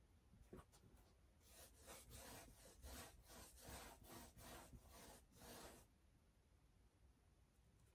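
A brush scrubbing paint onto a canvas in quick back-and-forth strokes, about two a second, starting about a second and a half in and stopping near six seconds.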